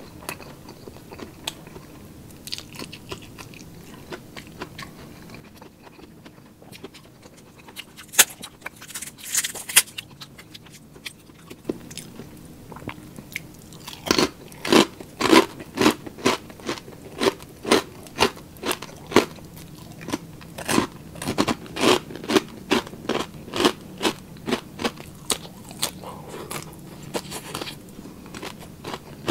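Close-miked eating of crispy chicharon and bangus sisig: scattered crunches and mouth clicks at first, then, about halfway through, loud steady crunching chews about two a second that ease off near the end.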